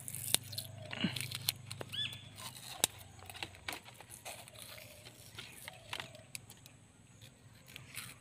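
Clear plastic grafting tape crinkling and crackling in irregular sharp little clicks as it is stretched and wound around a freshly made mango graft to seal it.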